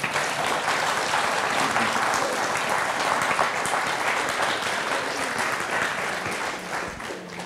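Audience applauding, dying away over the last couple of seconds.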